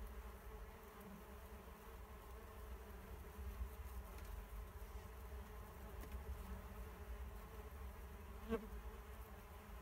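Many male mason bees buzzing as they fly back and forth in a swarm, a steady hum over a low rumble. One bee passes close about eight and a half seconds in, briefly louder.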